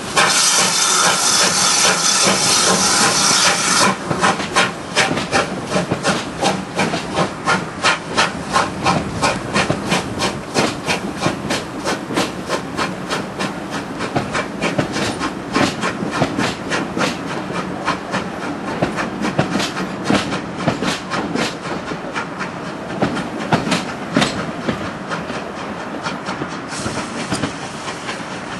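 Steam locomotive working a passenger train away. A loud hiss of steam for the first few seconds, then a steady run of quick, even exhaust beats mixed with the rolling of the coaches, slowly fading as the train pulls away.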